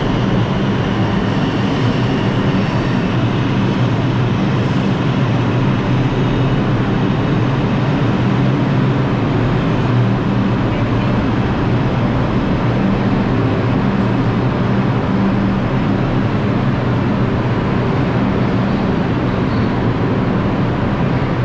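New York City subway train running: a steady rumble of wheels on track with a low hum underneath.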